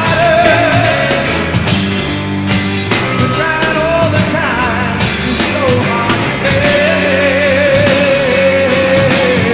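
Live hard rock band playing: electric guitar, bass and drums, with a long, wavering lead line held over them through the second half.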